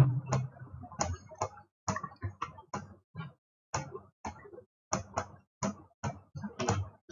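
Computer keyboard keys being typed: a string of short, sharp clicks at uneven spacing, about two to three a second.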